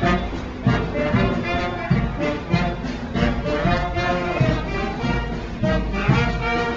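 Marching brass band playing, horns carrying the tune over a steady drum beat of roughly one and a half strokes a second.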